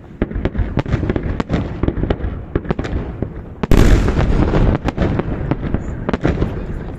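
Fireworks salute: a rapid run of sharp shell bursts and pops, with a much louder, dense burst a little past halfway that crackles on for about a second.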